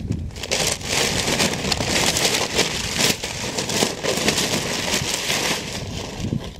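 Brown paper bags crinkling and tearing as a cougar bites into them and drags them, a dense crackle that starts about half a second in and eases off near the end.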